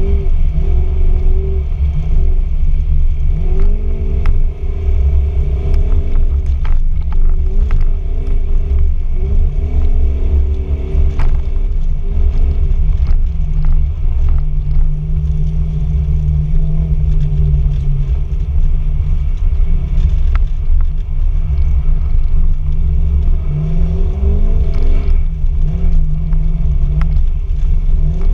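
Toyota Cresta X71's engine heard from inside the cabin, revving up and easing off again and again, held at a steady pitch for a few seconds about halfway through. A heavy low rumble runs underneath, with scattered sharp knocks.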